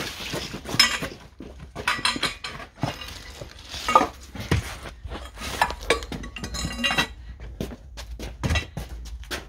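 Metal tools and parts clinking and clanking irregularly, with the loudest knock about four seconds in.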